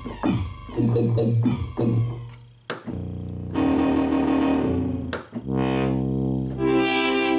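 Rhodes Chroma analog polyphonic synthesizer playing demo patches one after another: short repeated notes first, then held chords. One patch has a rising sweep about six seconds in. Each patch starts abruptly about three and five and a half seconds in.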